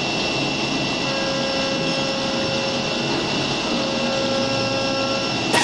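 CNC milling machine spindle and end mill cutting a metal block under flood coolant: a steady whir with a constant high whine.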